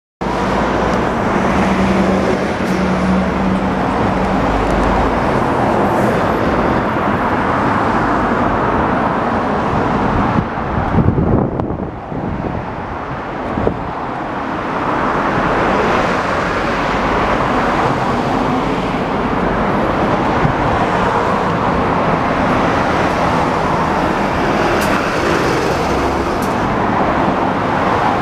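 Steady road traffic noise, with a brief low rumble about eleven seconds in.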